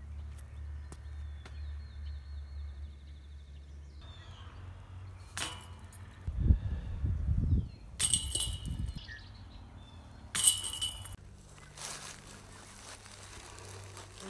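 Discs striking a metal disc golf basket: three sharp metallic clanks with a short ringing after each, the middle one the longest.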